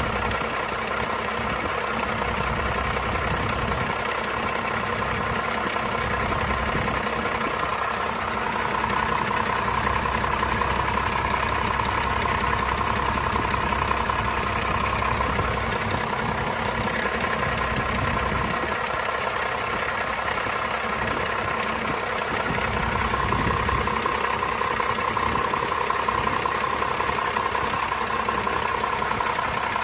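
1989 first-generation 12-valve Cummins 5.9 L inline-six turbo diesel idling steadily, run for the first time in a while. A higher whine over the idle comes in twice for several seconds, from about eight seconds in and again near the end.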